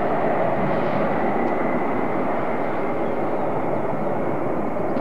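Jet engines of a KC-135E tanker and its accompanying fighter formation making a steady, even noise, with a faint steady whine above it.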